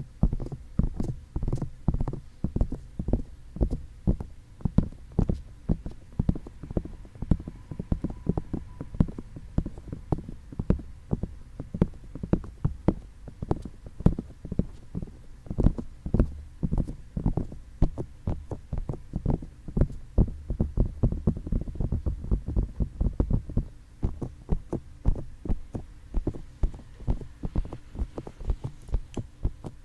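Fingertips tapping and rubbing on binaural ear microphones in quick, soft, muffled taps, several a second.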